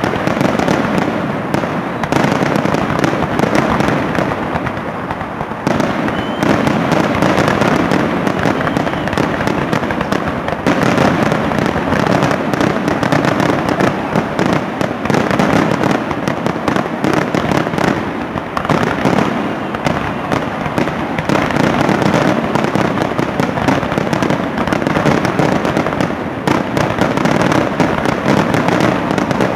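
Aerial fireworks shells bursting in a rapid, overlapping barrage of bangs, with no let-up.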